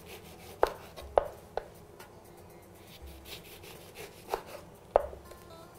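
Knife slicing an orange into thin rounds on a cutting board: about five sharp knocks of the blade reaching the board, unevenly spaced, with faint rubbing between cuts.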